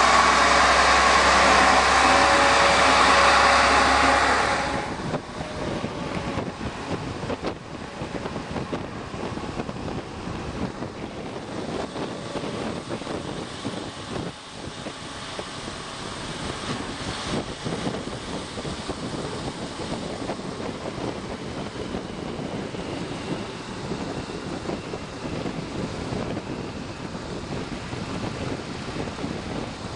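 A diesel locomotive engine running loud and steady, cut off abruptly about four and a half seconds in. After that comes a quieter, even rush of wind buffeting the microphone on the moving train, with a low rumble beneath it.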